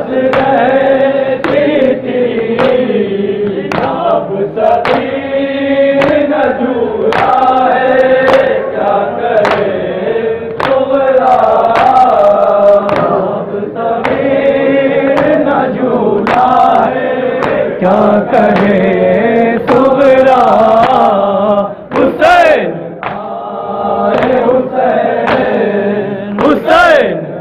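A group of men chanting a nauha, a Shia mourning lament, in unison, with rhythmic chest-beating (matam) about once a second keeping the beat. Two louder, sharper hits stand out in the last few seconds.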